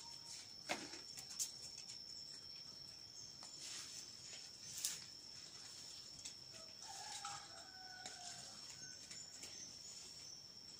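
A faint chicken calling about seven seconds in, over a steady high-pitched whine and a few light clicks.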